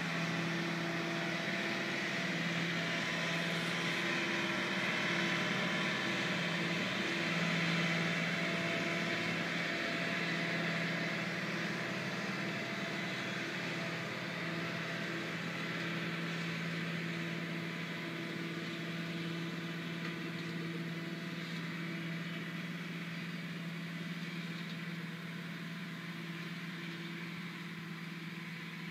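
Self-propelled crop sprayer's diesel engine running steadily as it drives across a field spraying: a low, even hum over a broad hiss, slowly getting quieter as it moves away.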